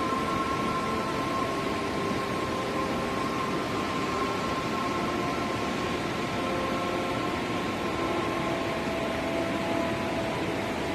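Waterfall: a steady rush of falling water, with a few faint steady tones above it.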